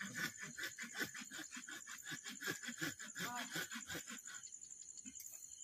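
Faint insects chirping: a steady high trill, with rapid even chirps that fade out about four and a half seconds in.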